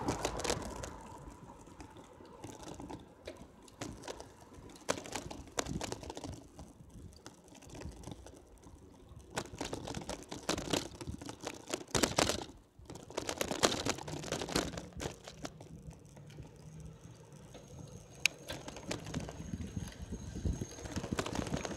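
Irregular clicking and rattling from a moving bicycle and its mounted camera jostling over the road surface, over a low rushing noise that swells and fades.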